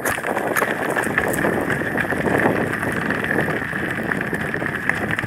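Wind rushing over a phone microphone on a moving bicycle, with scattered small clicks and rattles from the ride.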